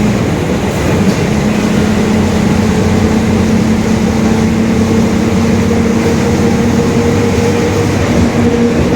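Mercedes-Benz OF-1721 Bluetec 5 bus under way, its drivetrain giving a steady pitched drone over road rumble: the growling rear differential.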